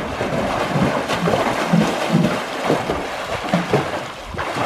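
Pool water splashing continuously as two children swim freestyle, their arm strokes and kicking feet churning the surface in an irregular run of splashes.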